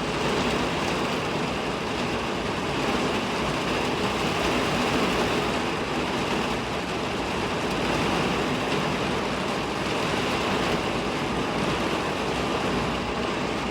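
Heavy typhoon rain pouring down steadily, an even, unbroken rush of water.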